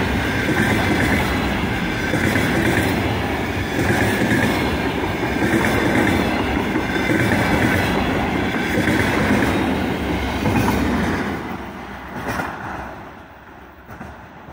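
Freight wagons, a boxcar and flatcars, rolling past with wheels clattering over the rails. About eleven seconds in the last wagon passes and the noise falls away as the train draws off.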